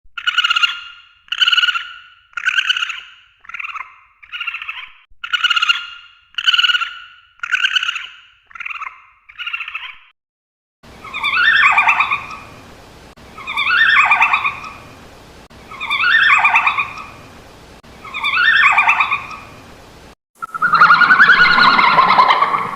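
Red panda calls. First comes a run of ten short high squeaking calls, about one a second. Then come four longer calls about two seconds apart over a faint hiss, and near the end a louder, continuous call.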